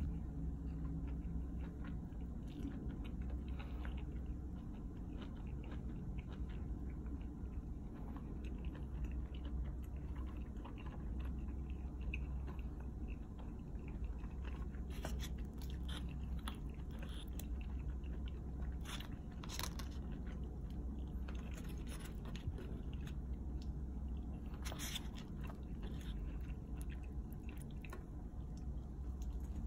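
A person chewing and biting pizza close to the microphone, with crunches from the crust. A few sharper clicks stand out in the second half over a steady low hum.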